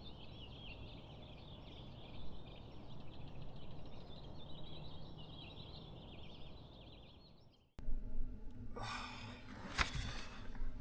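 Birds chirping and singing over a steady rush of wind, fading out and cutting off about eight seconds in. After that come a few sharp clicks and knocks over a background rush.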